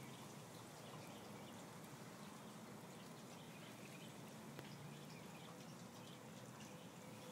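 Near silence: faint steady background hiss with a low hum and a few tiny ticks.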